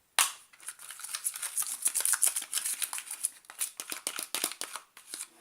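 Freshly activated borax slime being mixed in a bowl: a sudden click, then a dense run of irregular sticky clicks and crackles.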